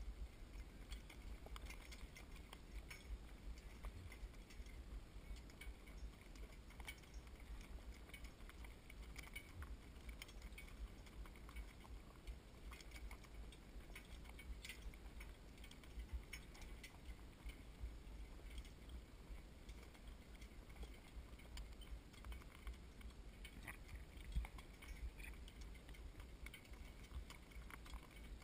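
Faint hoof clops and small harness jingles from a harnessed mule walking on a dirt track, over a steady low rumble.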